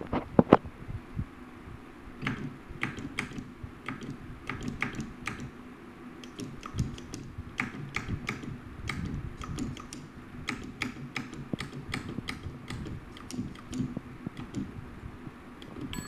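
Edison Mimeograph Typewriter No. 1, an index typewriter, being typed on: its printing lever and type wheel strike in an irregular run of sharp clicks, often two or three a second, with the loudest pair about half a second in.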